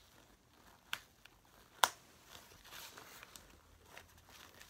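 Metal snap buttons on a fabric backpack pressed shut as its hood is fastened on: two sharp snaps about a second apart, the second the louder, with soft fabric rustling and a few faint ticks.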